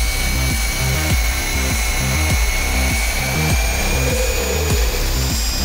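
Hilti SFC 22-A cordless drill driver running at high speed, driving a long screw into a wooden board with a steady high whine. The motor cuts off suddenly near the end.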